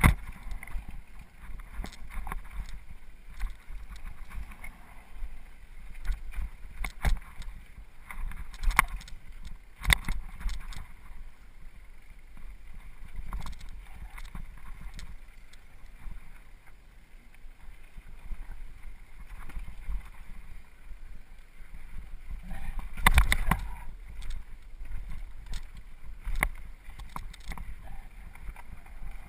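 Mountain bike ridden over a rough, rocky trail: a constant low rumble of wind on the microphone, with irregular knocks and rattles as the bike jolts over bumps. The biggest jolt comes about two-thirds of the way through.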